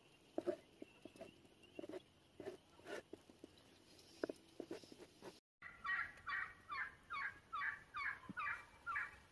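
A run of about nine turkey yelps in the second half, each a short falling note, about three a second. Before it, a few soft knocks and rustles.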